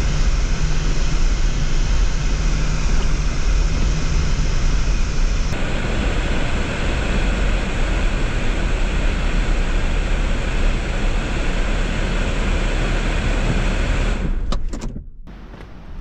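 Car driving along a snowy road: steady engine and road noise with a low hum. Near the end it drops away, with a few sharp clicks.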